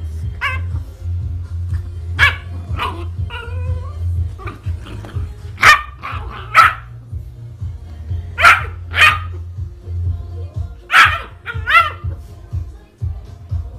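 A dog barking repeatedly, short sharp barks every second or two, often in pairs, over background music.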